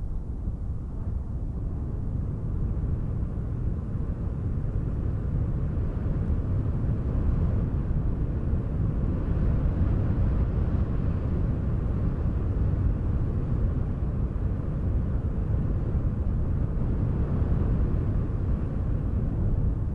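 Steady, deep wind noise, with most of its weight in the low rumble and no lulls.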